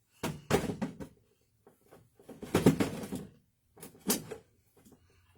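Three short bursts of kitchen handling noise, clattering and rustling, like a cupboard or containers being opened and things set down.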